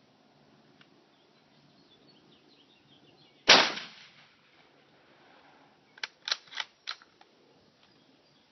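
A single loud shotgun blast, fired with buckshot, about three and a half seconds in, fading away over about half a second. A few seconds later comes a quick run of four or five sharp clicks.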